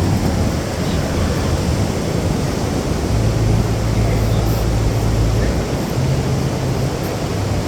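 Pacific Ocean surf breaking and washing on the beach, with wind rushing over the microphone. A low hum comes in about three seconds in and again briefly near the end.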